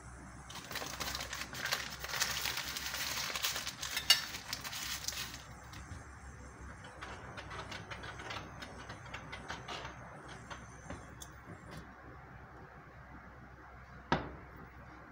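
Butter sizzling and crackling as it melts in a hot nonstick frying pan: a dense crackle for the first few seconds after a fresh cube goes in, thinning to scattered pops. A single knock near the end.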